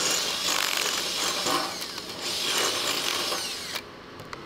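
Handheld power drill boring through a metal bracket, the bit grinding steadily into the metal with a couple of brief let-ups; it stops abruptly near the end.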